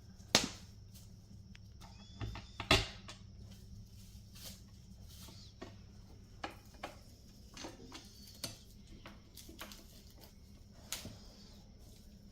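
Scattered clicks and light knocks of small hardware being handled as screws and handles are fitted to a cabinet door, with two sharper knocks in the first three seconds and fainter irregular clicks after.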